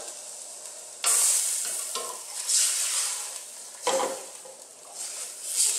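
Red wine sizzling in a hot stainless steel pan as it deglazes the browned meat juices. The hiss flares up sharply about a second in, then surges again several times as a wooden spoon scrapes and stirs the pan.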